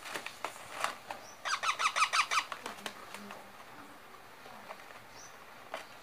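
Young rose-ringed parakeet giving a quick run of about nine short, shrill calls lasting a little over a second, starting about a second and a half in. A few faint clicks come before it.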